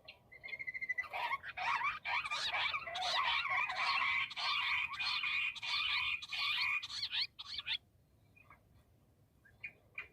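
Bush quail calling: a short row of quick high notes, then a fast, dense chattering run of calls that goes on for about seven seconds and breaks off, with a few scattered notes before it picks up again at the end.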